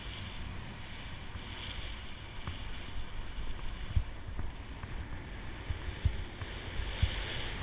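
Wind buffeting the microphone in uneven gusts, over a steady hiss.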